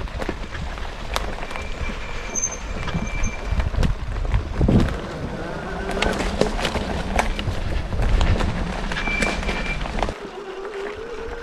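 Riding noise from a fat-tire electric bike on a bumpy trail: steady rumble and wind on the microphone, with frequent clicks and rattles from the bumps. Two short high-pitched squeals sound, one about two seconds in and one near the end.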